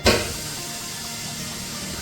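Tyre changer machine working: a sudden loud blast of air right at the start, then a steady hiss with a low hum underneath.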